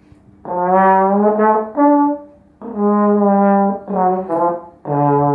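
Holton trombone, an American-made parade model, played loud: a short phrase of held notes at a few different pitches, separated by brief breaks.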